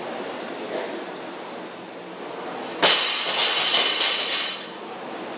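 Concept2 rowing machine's air flywheel whirring steadily as it is rowed. Nearly three seconds in, a loud metal clang and about a second and a half of ringing clinks and rattles.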